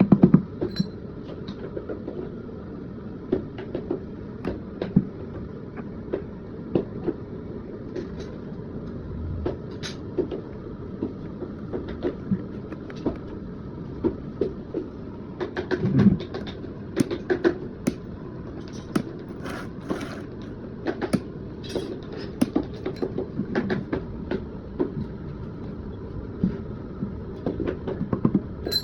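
Irregular clicks and knocks of hand work, with a louder knock about sixteen seconds in, over a steady low rumble.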